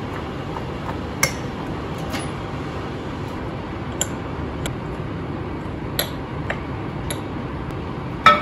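A metal spoon clinking against a ceramic bowl and plate while stirring and serving out food: about seven separate light clinks spread a second or so apart, with a sharper, louder click near the end.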